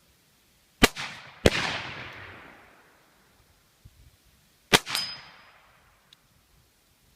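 Shots from a .44 black-powder cap-and-ball revolver: three sharp cracks, about a second in, shortly after, and near the five-second mark, each with a long decaying tail. A metallic clang rings out just after the last shot, typical of a hit on a steel plate.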